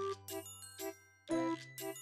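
Background music: short repeated chords over a held bass note, with a new phrase coming in about a second and a half in.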